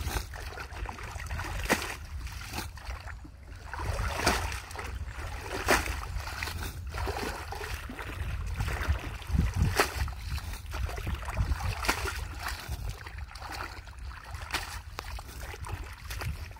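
Hands groping through shallow muddy water and weeds, with irregular splashes and sloshing every second or two over a steady low rumble.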